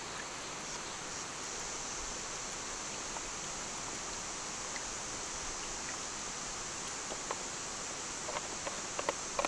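Steady outdoor background hiss with a constant high-pitched buzz, then a few light clicks and taps in the last couple of seconds.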